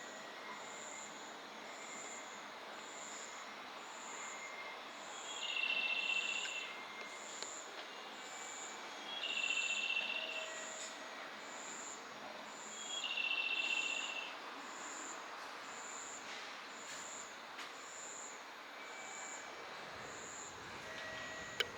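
Insects chirping: a high, regular chirp a little under once a second, with a louder trill of about a second repeating roughly every four seconds, over faint steady background hiss. One sharp click near the end.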